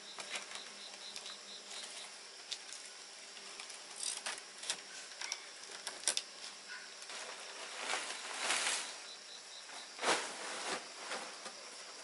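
Palm-frond thatch rustling and crackling as the leaves are pushed and tucked into place on a bamboo roof frame. It comes in irregular bursts, the longest about eight and ten seconds in.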